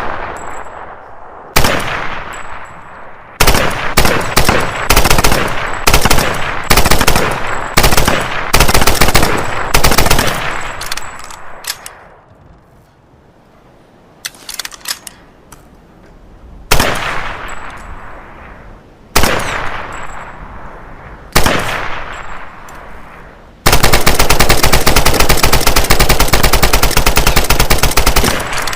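Type 100 submachine gun firing full-auto in a series of short bursts, each trailing off in an echo, with a lull in the middle. Near the end comes one long burst of about five seconds that cuts off sharply.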